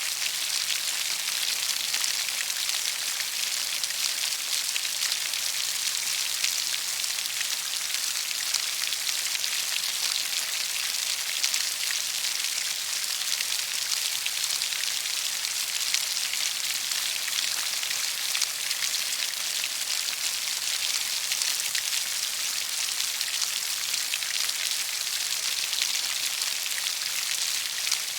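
Steady rainfall: an even hiss of many drops pattering on a surface, with fine ticks of individual drops and no change in strength.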